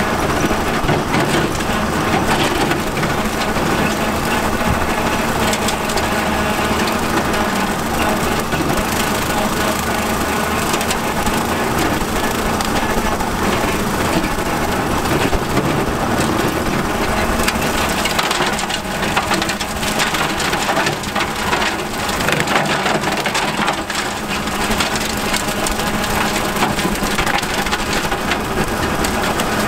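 Bush Hog Model 305 rotary cutter mowing behind a running tractor: its spinning blades chop dry leaves and sticks with a dense, continuous crackling clatter over the steady sound of the tractor engine.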